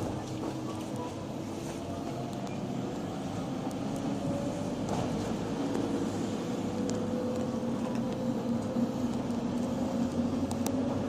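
Mercedes Sprinter minibus heard from inside on a ride, its engine and drivetrain running with a steady whine that slowly rises in pitch as it gathers speed, over road rumble.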